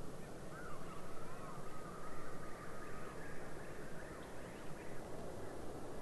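Wood duck calling: a run of thin, wavering squeals in the first half, over steady background noise.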